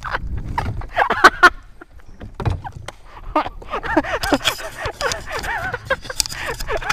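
Several sharp knocks and clatter on a small wooden fishing boat while a hooked fish is landed with a fish grip. From about halfway, a busy run of short rising-and-falling chirps joins in.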